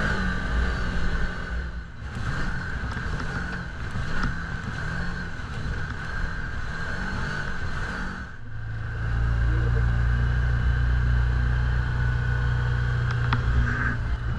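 Side-by-side UTV's engine running as it drives along a dirt trail, with a steady high whine above the engine note. About eight and a half seconds in, the engine sound turns louder and deeper and holds steady.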